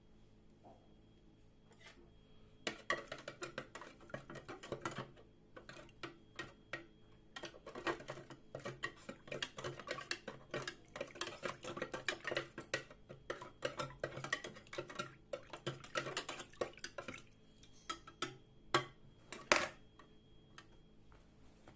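Quick, dense clinking and scraping of metal on hard surfaces, as in rust-removal work in a kitchen, from about three seconds in until near the end, followed by two sharp clicks.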